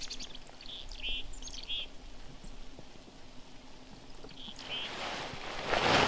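Small birds chirping in short high bursts over faint outdoor noise, with a louder broad noise swelling near the end.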